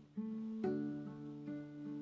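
Acoustic guitar played slowly and softly, single plucked notes and chords ringing out, a new note about every half second.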